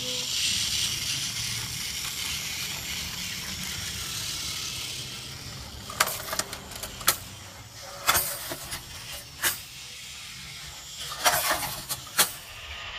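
A battery-powered motorized toy Thomas engine running along plastic track: a steady motor whir, then from about six seconds in a string of sharp plastic clicks and clacks.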